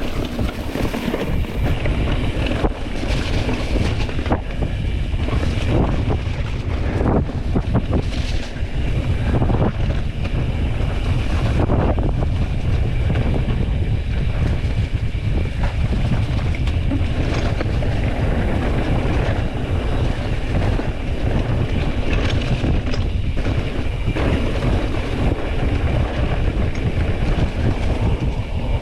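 Heavy wind buffeting the microphone, a loud steady low rumble with irregular gusts, as on something moving fast in the open.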